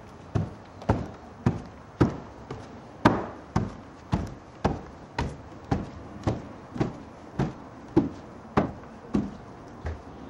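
Footsteps going up wooden stairs: a steady run of sharp knocks, just under two a second.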